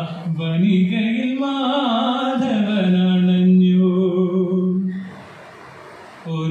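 A young man singing a Malayalam song solo into a microphone with no accompaniment. He sings an ornamented melodic line with a long held note about halfway through, then pauses for about a second near the end before starting the next phrase.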